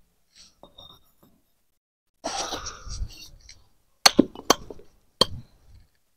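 Fired clay bricks being handled and set in place on a mortar bed: a short rough noise, then three sharp knocks of brick on brick in quick succession near the end.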